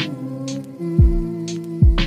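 Background music: held chords over a beat of deep kick-drum hits and short sharp snare-like hits.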